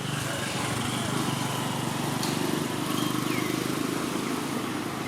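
A steady low engine hum. A faint high call glides downward about three seconds in.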